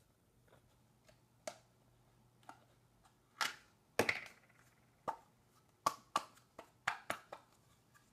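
A small plastic Play-Doh tub and its snap-on lid being handled: a string of sharp clicks and knocks, loudest about four seconds in, with a quick run of them in the last three seconds.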